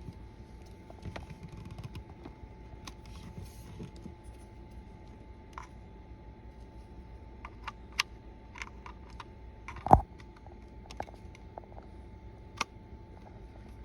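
Scattered small clicks and taps as a three-prong power cord is handled and plugged into the back of a small electric kettle, with one louder knock about ten seconds in. A faint steady tone runs underneath.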